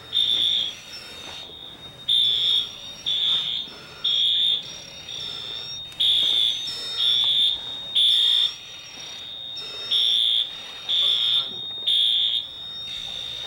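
School fire alarm sounding: a high-pitched electronic tone repeating in short beeps, about one or two a second, with brief breaks in the pattern.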